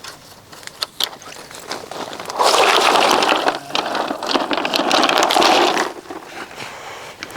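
Tent fabric rustling and scraping as it is pulled down and gathered up, a loud crackling stretch of about three and a half seconds beginning a couple of seconds in, after a few light knocks.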